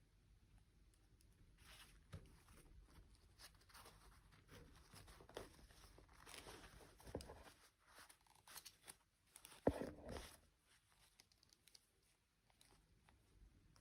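Faint, intermittent handling noises: toy packaging being torn and crinkled, with one sharp click about two-thirds of the way through.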